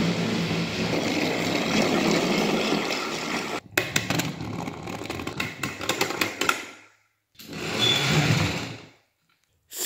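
Battery-powered motorized toy trains running on plastic track: a steady small-motor whir with wheel rattle, then after an abrupt cut about three and a half seconds in, a quieter run of rapid clicking from wheels over the track. A second short burst of motor whir near the end stops abruptly.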